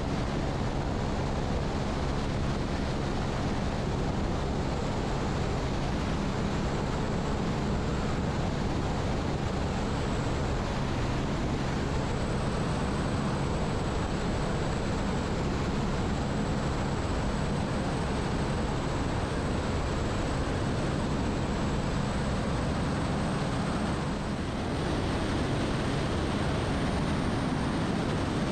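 Airbus AS350 B3e Esquilo helicopter running steadily, a constant rush of turbine and rotor noise with low steady tones and a thin high whine above it. The noise dips briefly near the end.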